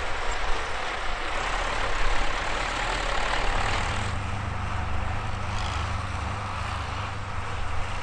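MTZ-82 tractor's four-cylinder diesel engine idling steadily at a constant pitch, from about three and a half seconds in. Before that there is a broad rushing noise.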